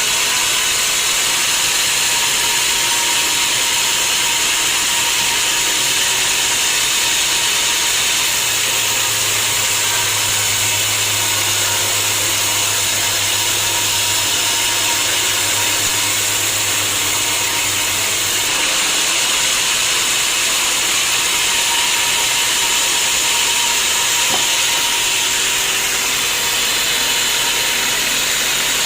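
Sawmill saw cutting through a mahogany log, a loud, steady, hissing machine noise. A low hum joins in about a third of the way through and drops out a little past halfway.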